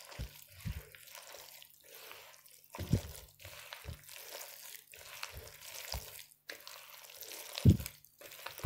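A gloved hand squeezing and kneading sticky, wet dough in a bowl: irregular wet squelching, with a few dull knocks, the loudest about three seconds in and near the end.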